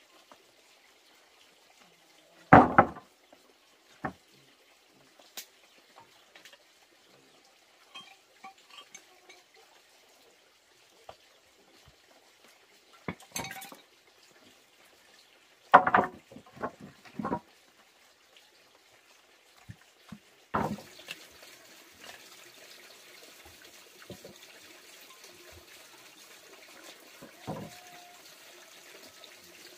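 Sawn wooden planks knocking and clattering as they are lifted and set down on a stone floor: a few sharp wooden knocks, the loudest about two and a half seconds in and a quick cluster around sixteen seconds. From about twenty seconds in a steady faint hiss underlies the scene.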